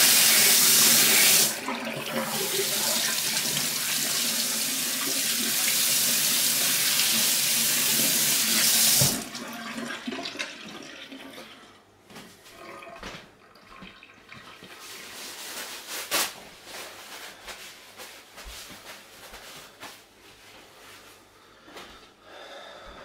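Kitchen tap running into a stainless steel sink, the water splashing over a hand; the splashing drops somewhat about a second and a half in. The tap is shut off about nine seconds in, after which only faint scattered clicks and a single knock remain.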